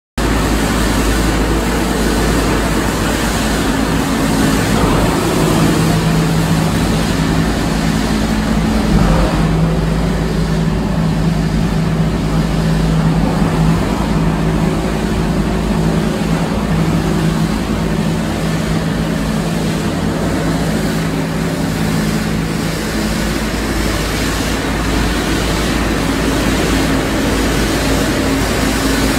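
A plastic film recycling line running: a steady, loud machine drone of electric motors and conveyors, with a low hum that is strongest from about four seconds in until about sixteen seconds in.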